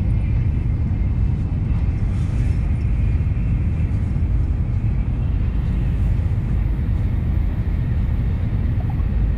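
Tokaido Shinkansen bullet train running at high speed, heard from inside the passenger cabin: a steady, even low rumble with a faint higher hiss above it.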